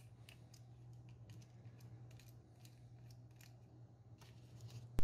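Faint, irregular little clicks of a precision screwdriver turning out the small screw that holds the circuit board in a plastic solar garden light, over a low steady hum.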